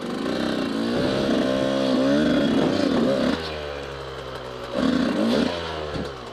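Yamaha YZ125 two-stroke single-cylinder dirt bike engine under way, the revs climbing and falling as the throttle is opened and eased. The engine pulls up for about two seconds, drops back past the middle, then rises briefly again before easing off.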